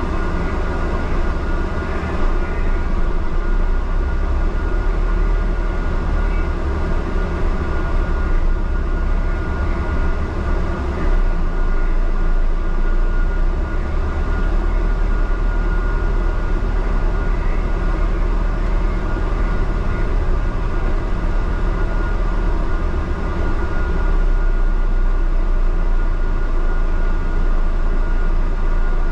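Interior noise of a moving double-decker bus heard from its upper deck: a steady low rumble of engine and road noise with a thin, steady high whine running through it.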